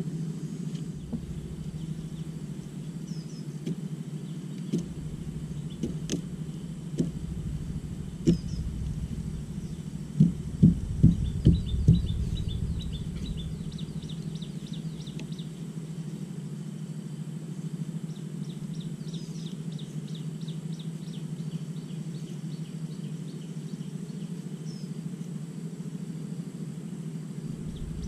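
Outdoor ambience with a steady low rumble, a few scattered clicks, and a run of five sharp knocks about ten seconds in. Small birds chirp in short bursts after the knocks and again later on.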